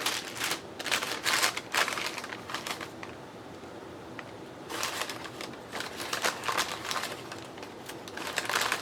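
Paper rustling and shuffling as loose paper pieces are handled and sorted, in quick scratchy strokes with a quieter pause midway.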